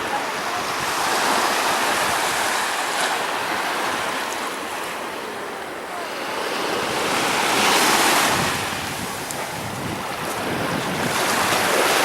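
Ocean surf: waves breaking and washing up the beach, swelling and easing about three times.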